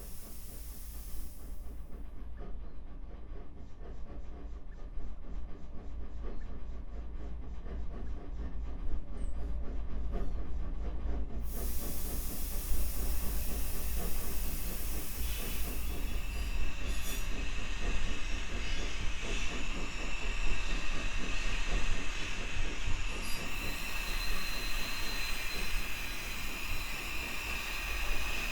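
Sound-effect recreation of a steam locomotive running, made from household sounds such as a kettle, breath and a mug: fast rhythmic chugging over a steady low rumble, growing slowly louder. About 12 s in a hiss of steam comes in, and from about 16 s a high squealing tone sits over it.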